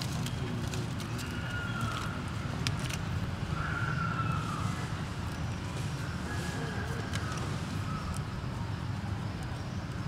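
Baby macaque crying: four thin, wavering high-pitched cries, the loudest about four seconds in, over a steady low rumble.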